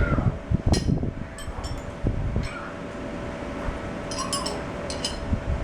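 Scattered sharp metallic clinks and knocks, the loudest about a second in and a quick cluster near the end, over a steady low hum.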